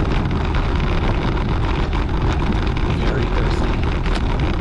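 Wind rushing over the camera microphone while riding a CAADX gravel bike, a steady noise with the tyres rolling over cracked, broken pavement and many small rattles and clicks from the bike.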